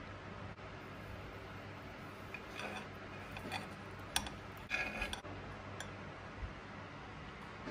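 A metal fork cutting through a chocolate-glazed roll cake: a few small clicks from about two and a half seconds in, a sharp click just after four seconds, and a short crackle around five seconds as the glossy chocolate shell breaks, over a faint steady hiss and low hum.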